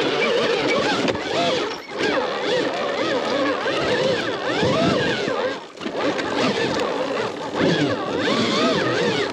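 Arctic Leopard electric dirt bike's motor whining under load on a steep hill climb, its pitch wavering up and down as the throttle is worked, with a few brief dips.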